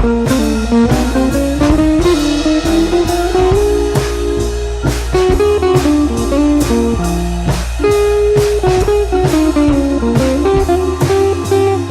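Background music: guitar-led blues-style track with a drum kit keeping a steady beat.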